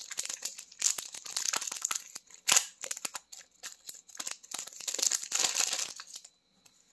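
Foil wrapper of an Upper Deck hockey card pack being torn open and crinkled by hand: a run of crackling rustles, with a louder crackle about two and a half seconds in. It stops about six seconds in.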